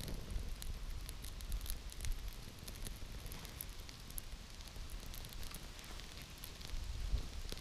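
Wood campfire burning, crackling with many small irregular pops.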